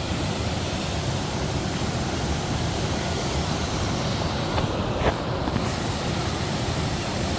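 A large waterfall on the Chania River, its water pouring down steadily in a continuous rushing noise. A single short click sounds a little past halfway.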